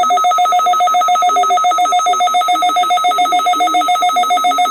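Weather radio receiver's electronic alert alarm, set off during a Required Weekly Test: a loud, rapidly pulsing trill like a ringing telephone, with the broadcast voice faint beneath it.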